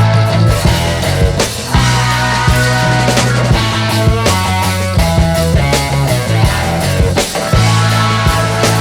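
Background music: a rock-style track with guitar, a steady bass line and a regular drum beat.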